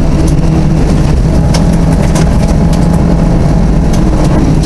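Rally car engine running at a steady, even speed, heard from inside the cabin, with scattered sharp ticks of gravel striking the car as it drives on a gravel road.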